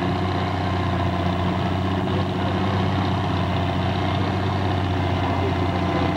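Antique farm tractor engines idling steadily, a constant low running note with no revving.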